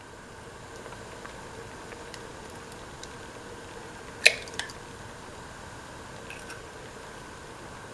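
Coconut milk stew simmering in a pot, with a sharp crack about halfway through as an egg is cracked open into it, and a smaller tap just after.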